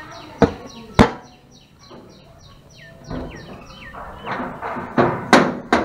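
Sharp metallic clacks of a metal garden gate and its latch being handled: two in the first second, then three in quick succession near the end. A bird chirps rapidly and steadily throughout.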